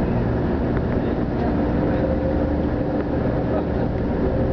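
Steady running noise of a Shinkansen bullet train at speed, heard from inside the passenger cabin, with a faint steady hum.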